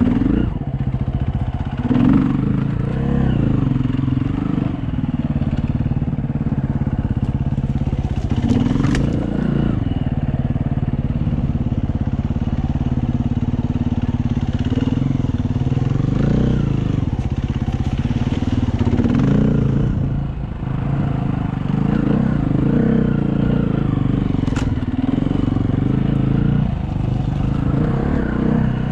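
Dirt bike engine running under changing throttle, its pitch rising and falling again and again. There are two sharp knocks, about nine seconds in and near the end.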